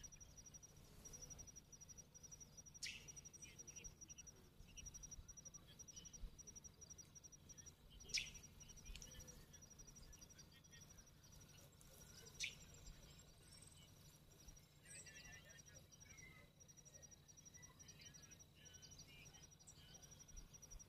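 Near silence with faint insects chirping: a high, evenly pulsed trill that runs in long strings, broken by a few soft clicks.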